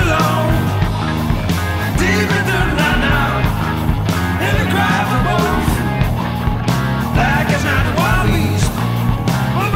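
Blues-rock band recording playing at full volume: drums and bass under a lead line that bends in pitch.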